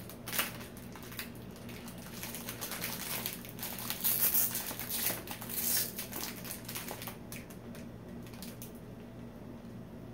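A crinkly plastic snack wrapper being handled and pulled open by hand: a run of irregular crackles and crinkles, busiest around the middle.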